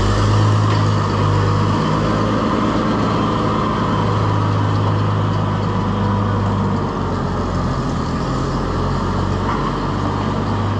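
A large farm vehicle's engine running steadily with a strong low hum as it is driven, easing slightly after about seven seconds.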